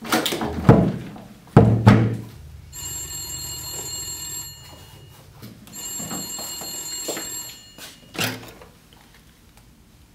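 Two heavy thumps as a door is shut, then a telephone bell rings twice, each ring about two seconds long. A clunk follows as the handset of the rotary desk phone is lifted.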